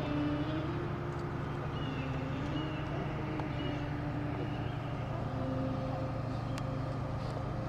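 A steady, low engine-like rumble that holds constant throughout.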